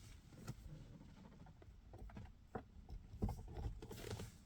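Faint scattered clicks and knocks of cables being handled and a USB plug being pushed into a car charger adapter's port.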